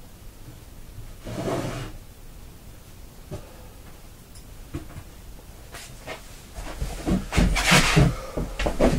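Hands handling things on a workbench: a short rustle about a second and a half in, a few light clicks, then a louder run of knocks and rubbing in the last two seconds or so.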